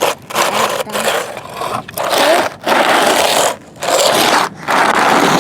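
Toy bulldozer blade scraping and pushing through sand and gravel in repeated strokes, about one a second.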